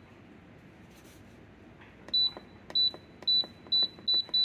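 Crock-Pot electric pressure cooker's keypad beeping once for each button press as the cook time is stepped up. About six short, high beeps at one pitch begin about two seconds in and come a little faster toward the end.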